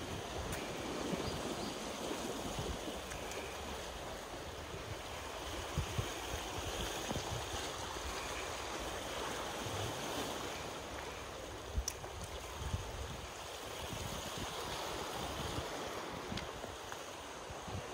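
Steady wash of calm sea water lapping at a seawall, with wind rumbling on the microphone and a couple of brief light knocks.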